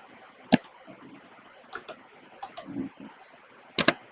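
A few sharp keystrokes on a computer keyboard while a spreadsheet entry is made: one loud click about half a second in, a few lighter taps, and a quick double click near the end.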